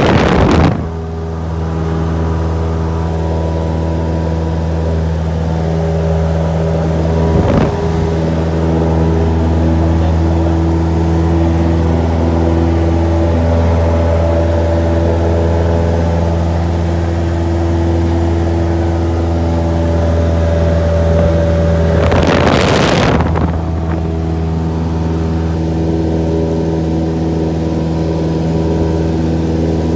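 Cessna F152's four-cylinder piston engine and propeller droning steadily, heard from inside the cabin in flight. A brief rush of noise breaks in near the start and again about three-quarters of the way through.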